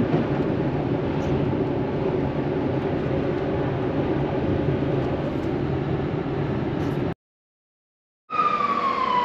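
Steady road and wind noise inside the cabin of a Tesla Model X driving on the motorway. It cuts off abruptly about seven seconds in, and after about a second of silence a high tone comes in and slowly falls in pitch.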